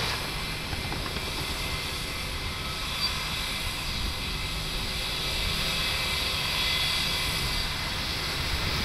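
A distant jet airliner on the runway: a steady engine rumble with a faint high whine, swelling slightly past the middle.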